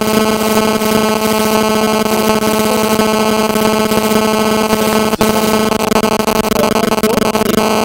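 Loud, steady electronic buzz on one low-middle pitch with many overtones, drowning out the lecture. It reads as an audio fault in the recording or sound system. A single sharp click comes about five seconds in.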